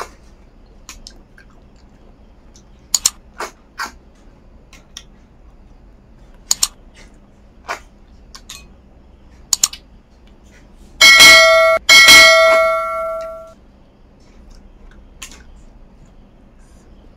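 Eating sounds from snail curry eaten by hand: scattered short mouth clicks of chewing. About eleven seconds in, a steel plate is struck twice, a second apart, and rings for a couple of seconds.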